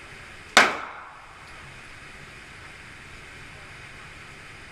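A single 9mm Glock pistol shot about half a second in: one sharp crack with a short echoing tail.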